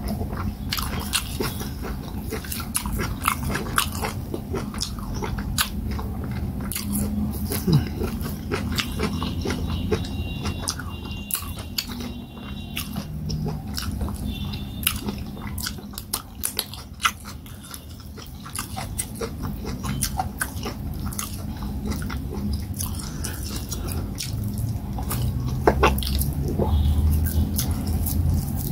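A person chewing fufu with peanut and water leaf soup, with wet mouth sounds and many short sharp clicks and smacks.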